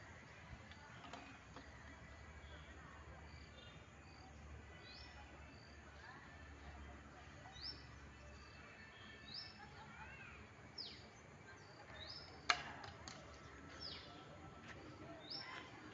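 Faint bird chirps, short high notes repeating about every second and a half over a quiet background hiss, with one sharp click about twelve seconds in.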